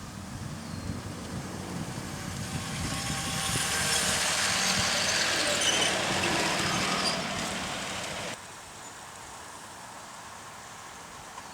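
G-scale garden railway train running past, its noise growing louder over a few seconds, then cutting off suddenly about eight seconds in.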